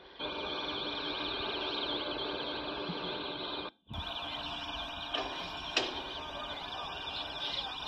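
Outdoor ambience at a bridge construction site: a steady low hum under a high, rapidly warbling drone, with two faint knocks in the second half.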